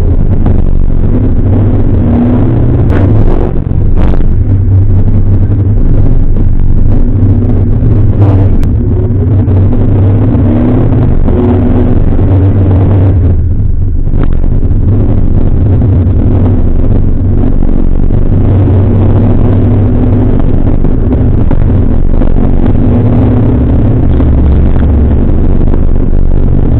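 Jowett Jupiter's flat-four engine pulling the car along, heard from the cockpit, loud and steady with its note shifting up and down with the throttle. It dips briefly about halfway through, and a few short knocks come a few seconds in.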